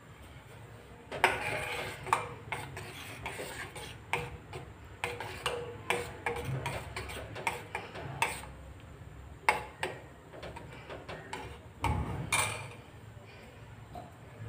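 A steel spoon stirring soaked sago pearls and water in a steel pot, scraping and clinking irregularly against the pot. The stirring starts about a second in.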